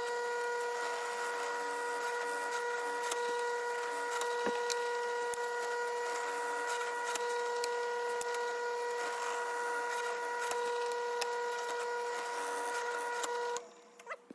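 Drill press running steadily with a 5/16-inch bit boring holes in walnut: a constant motor whine over the hiss of cutting, with scattered small ticks. The motor shuts off about a second before the end.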